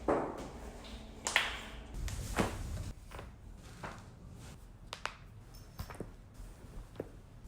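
A person cracking their own joints: a run of sharp pops and clicks, the loudest about a second and two and a half seconds in, then smaller single clicks spaced about a second apart, with the rustle of body movement between.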